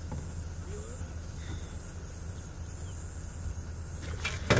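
Steady low background rumble, then near the end a sudden loud splashing of water at the side of the boat as an alligator is pulled up against it.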